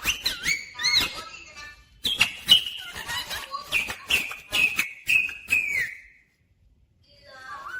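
Rose-ringed (Indian ringneck) parrot calling in high whistled notes mixed with sharp clicks. It gives a run of repeated short high notes at about two a second, falls silent for about a second, then starts calling again near the end.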